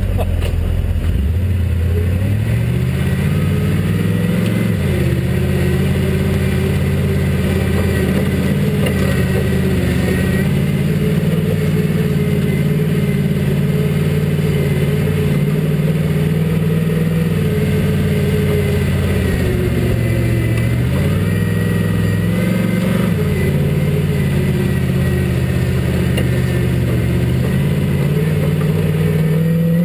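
Off-road buggy's engine running under load, heard from the driver's seat. Its pitch rises and falls repeatedly as the throttle is worked.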